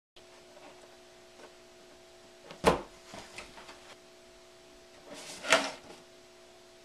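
Two sharp thumps about three seconds apart as a pencil is jabbed into an inflated balloon that does not pop, each followed by a little rubbery rustle. A faint steady hum runs underneath.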